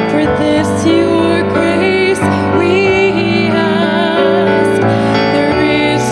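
A woman singing with vibrato while accompanying herself on a Sauter grand piano.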